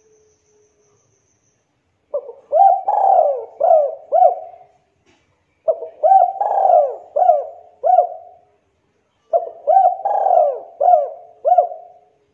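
A spotted dove (tekukur) cooing: three phrases a few seconds apart, each a run of five or six quick, rising-and-falling coo notes.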